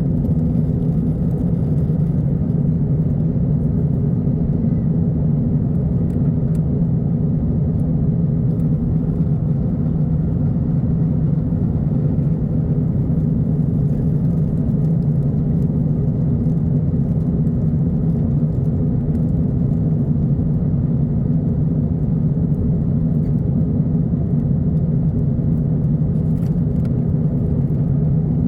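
Steady low drone of a jet airliner's passenger cabin in flight: engine and airflow noise, unchanging throughout.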